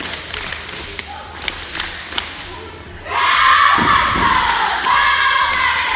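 A cheer squad's claps and stomps on a wooden gym floor, then about halfway through the girls break into a loud shouted group chant.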